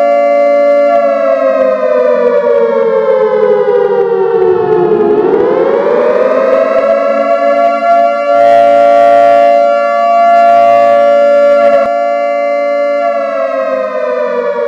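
Civil defense air-raid siren wailing as a chord of several tones. The pitch slides down over the first few seconds, swoops back up and holds, then starts to fall again near the end. Two short stretches of hissing noise are mixed in around the middle.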